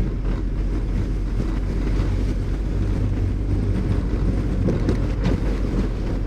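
Steady low rumble of a car's engine and tyres on the road, heard from inside the moving car, with a few faint ticks about five seconds in.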